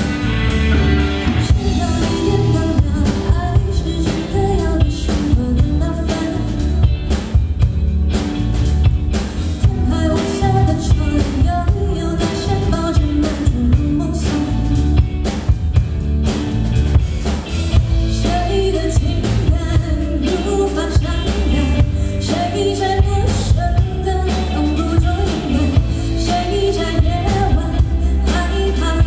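Rock song with a sung vocal over a drum kit, bass and guitar, the drums keeping a steady beat.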